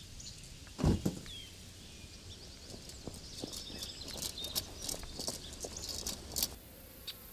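A wooden shed door thumps shut about a second in. Then footsteps brush and crunch across a grass lawn, with birds chirping faintly.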